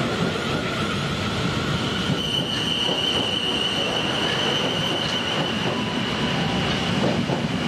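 South Western Railway Desiro electric multiple unit running past along the platform, its wheels and bogies giving a steady rumble. From about two seconds in a high, steady squeal rises over the rumble and holds until near the end.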